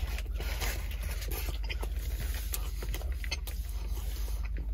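A person chewing a mouthful of sandwich: many small wet mouth clicks and crackles over a steady low hum.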